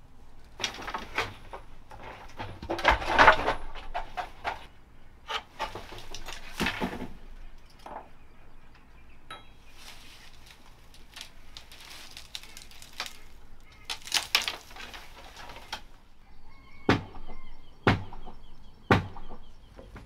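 Dry thatch and bamboo poles rustling, crackling and clattering as an old thatched roof is pried apart and pulled down. Near the end come three sharp knocks about a second apart.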